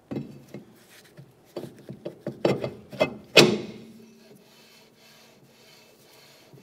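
Honda Civic rear brake drum being pushed onto the hub over new brake shoes: a run of metal clunks and scrapes, the loudest about three and a half seconds in with a brief ring. Then the drum is turned by hand and the shoes scrape faintly against it, a light drag.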